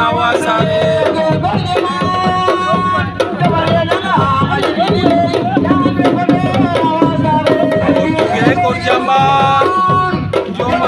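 Music of hand drums and singing: many quick drum strokes under a voice holding long, wavering notes.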